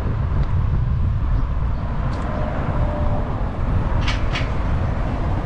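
Wind buffeting the microphone as a low, fluttering rumble, with two short hissing scuffs about four seconds in.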